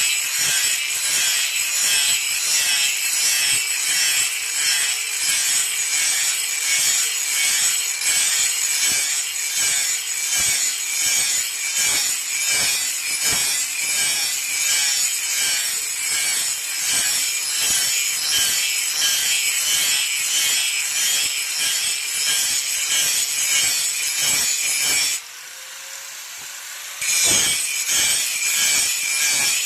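Steel being hand-sharpened with rhythmic back-and-forth rasping strokes, about two a second, as the forged boti blade is given its edge. The strokes stop for about two seconds near the end, then resume.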